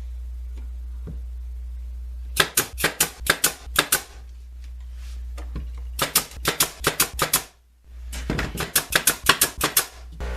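Rapid sharp strikes from fastening together the pieces of a wooden drawer box, in three runs of one to two seconds each at about seven strikes a second, over a steady low hum.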